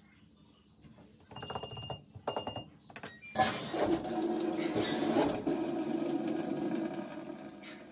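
GE top-load washer's control panel sounding two short electronic tones, then, about three and a half seconds in, the water inlet valve opens and water rushes into the tub as the fill begins. The rush is steady and eases off toward the end.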